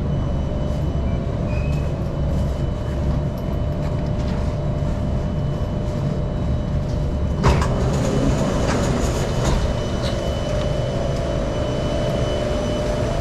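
Singapore MRT train running, with a steady low rumble and a constant whine. A sharp clack comes about seven and a half seconds in, followed by a few lighter clicks.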